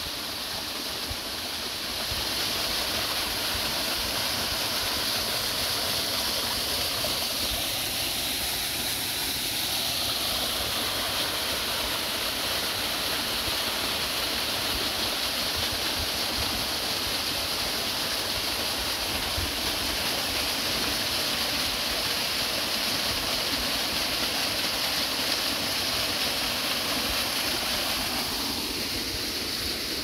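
Small waterfall cascading over a rock face: a steady, even rush of falling water, slightly fainter near the end.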